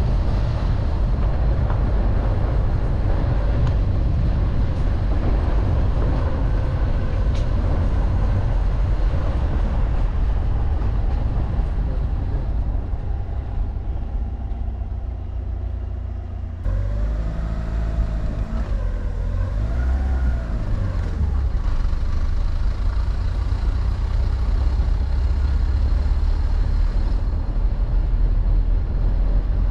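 A motor vehicle driving, with a steady low engine and road rumble. After an abrupt cut about 17 s in, the engine note rises and falls for a few seconds.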